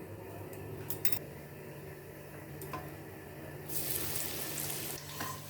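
Aloo bread snacks frying in hot oil with a hissing sizzle that swells louder for about a second near the end. A few light clicks come about a second in, over a steady low hum.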